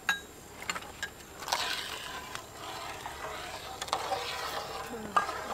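A metal ladle clinking sharply against a metal wok and bowl several times, with soup being stirred and scooped in between.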